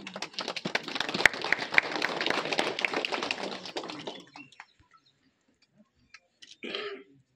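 A small group of people clapping their hands, dying away after about four seconds.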